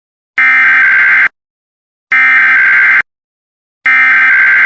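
Emergency Alert System SAME header: three bursts of buzzing digital data tones, each just under a second long with a second of silence between, the coded signal that opens an EAS test broadcast.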